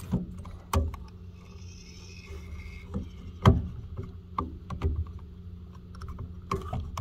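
Pop-top zone valve actuator being pressed and twisted by hand onto its brass valve body: scattered clicks and knocks of plastic on metal, the loudest about halfway through as it clicks into place. A steady low hum runs underneath.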